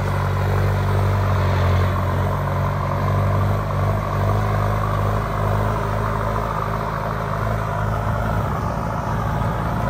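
Kubota M7508 tractor's turbocharged diesel engine running steadily under load while it pulls a disc plough through soil. The sound is an even, unbroken engine drone with a deep low hum.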